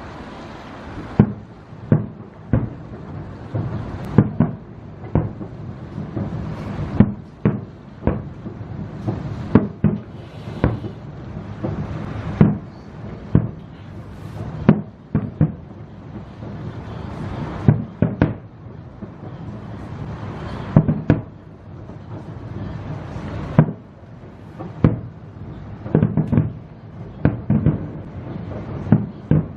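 Fireworks display: aerial shells bursting in a rapid, irregular string of loud bangs, often one or two a second, with a steady low rumble between them.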